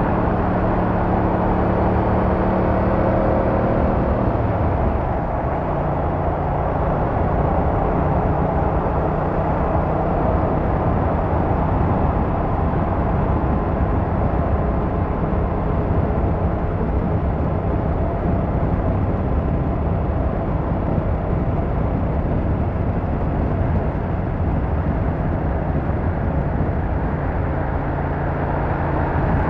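Car driving along a road: steady road and tyre noise under a low engine hum. The engine note shifts lower about four to five seconds in, then holds steady.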